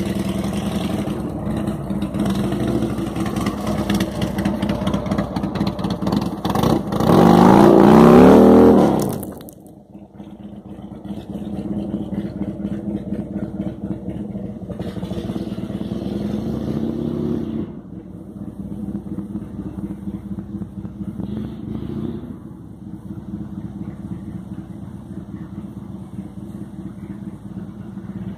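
Buell M2 Cyclone's air-cooled V-twin engine running. About seven seconds in it is revved hard with a rising pitch, then it drops off abruptly a couple of seconds later. After that it runs lower with a few smaller revs that cut off near the middle and again later.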